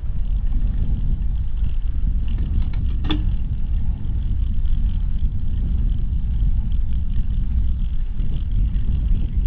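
Steady low rumble of a bicycle riding over a block-paved path, with wind buffeting the handlebar camera's microphone. A brief click about three seconds in.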